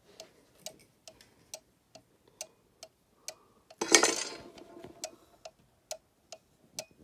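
Regula one-day cuckoo clock movement ticking steadily, a little over two ticks a second, with its back cover off. About four seconds in there is a brief, louder handling noise over the ticking.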